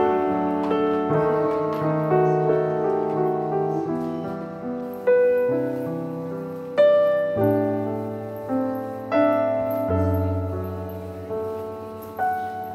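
Background piano music: slow piano melody, single notes struck every second or two over held lower chords.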